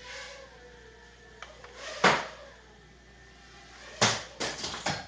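Mini quadcopter knocking into things and crashing in a small room: one loud sharp knock about two seconds in, then a quick cluster of knocks near the end.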